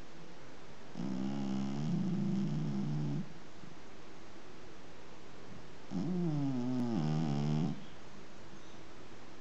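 Domestic cat snoring in its sleep: two long, pitched snores of about two seconds each, the second starting about five seconds after the first.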